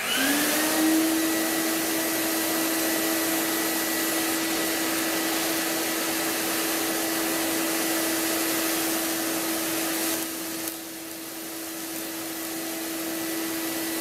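Vacuum cleaner switched on, its motor spinning up with a short rise in pitch to a steady whine and rushing air, drawing through a hose and cyclone dust separator as the nozzle sucks up floor debris. About ten seconds in, the sound drops slightly in level, then slowly builds back.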